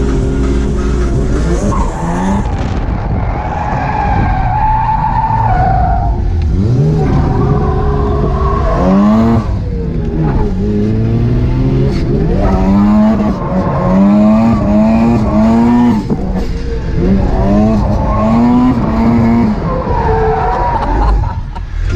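Drift car engine revving high and dropping back again and again as the car slides, with tyres squealing and skidding.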